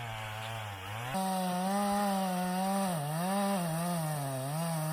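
Stihl chainsaw running under load while cutting into an ash trunk. Its engine note steps up abruptly about a second in, then dips and recovers several times as the chain bites.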